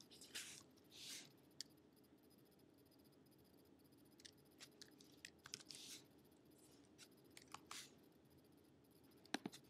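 Near silence: a faint steady low hum with scattered soft clicks, as from a computer mouse or trackpad, and a few brief soft hisses.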